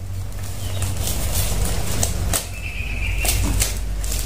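Packing tape being cut and pulled off a cardboard tube, with a string of sharp rips and clicks and a short high squeal of tape peeling about three seconds in, over a steady low rumble.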